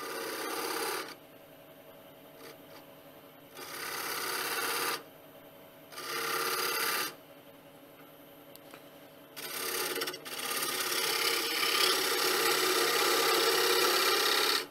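Carbide-tipped turning tool scraping decorative grooves into a spinning wooden plate on a lathe. Three short cuts, then a longer one of about five seconds.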